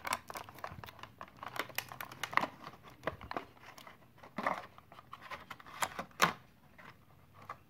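Clear plastic blister packaging crinkling and crackling as it is pulled from a cardboard box and handled, in irregular crackles that thin out near the end.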